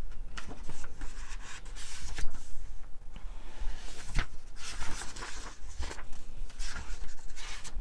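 Paper pages of a thick dictionary being leafed through by hand: a series of irregular rustles and flicks as page after page is turned.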